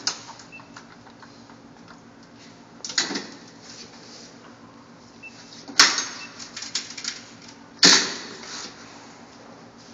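Payphone handset and hook handled, making four sharp clunks with a short ringing tail, the loudest about six and eight seconds in, with lighter clicks between them. A low steady hum runs underneath.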